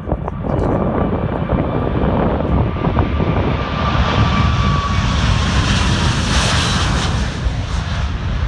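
Jet airliner passing close by: its engine noise swells to a peak about six seconds in, with a whine that slides slowly down in pitch, over a steady low rumble.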